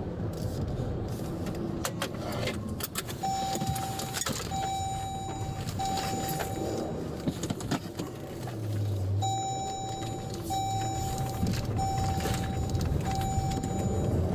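Two runs of four steady electronic beeps, each about a second long with short gaps between them, over a vehicle's low running rumble. A few clicks come before the first run.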